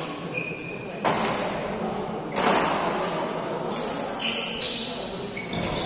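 Badminton rally: racket strings hitting the shuttlecock several times with sharp, echoing smacks, between them short high squeaks.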